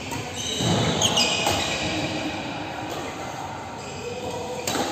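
Badminton rally: rackets striking the shuttlecock in several sharp hits, the clearest near the end, with short squeaks of shoes on the court floor.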